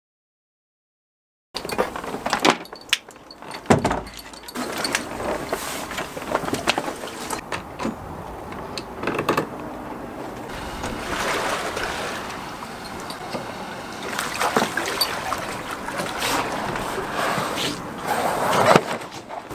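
A second and a half of silence, then handling noise: scattered knocks, bumps and rubbing as an inflatable dinghy is worked with and lifted on a wooden pontoon, with footsteps, over a steady outdoor background noise.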